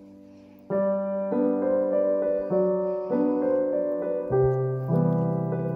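Background piano music: soft at first, then a louder run of sustained chords begins under a second in, changing every half second or so.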